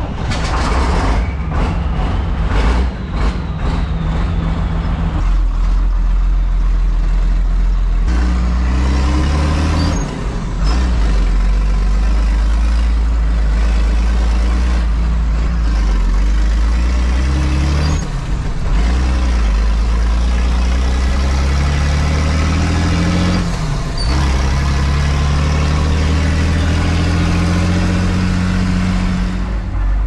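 Large diesel farm engine running hard, loud and continuous. Its pitch climbs in long rises and drops back sharply three times, as when the engine is accelerated and then eased off or shifted.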